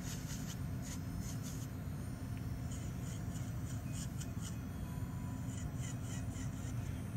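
Electric nail drill with a diamond callus bit grinding callus along the side of a fingernail: a steady low motor hum under repeated short, scratchy grinding strokes.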